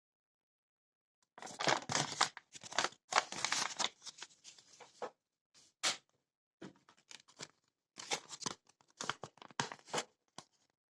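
Paper rustling and crinkling in irregular bursts as a printed instruction manual is handled, starting about a second in.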